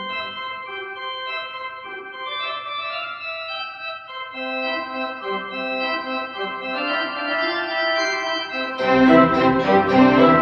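Background music of slow, sustained chords that change every second or two, turning suddenly louder and fuller near the end.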